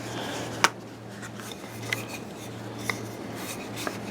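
Quiet handling of an old Norlund axe: one sharp click about half a second in, then light rubbing and a few faint ticks.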